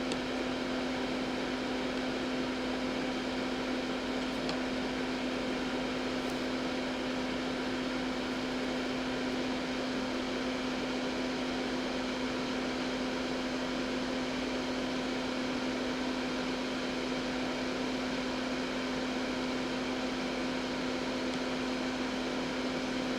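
Steady hum of a small electric fan running, a constant low tone over an even whoosh of air.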